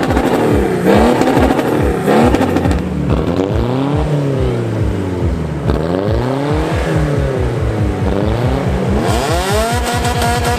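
Diesel car engine free-revved over and over, its pitch climbing and falling back about every two seconds while it blows out black exhaust smoke. Near the end it climbs and holds at high revs.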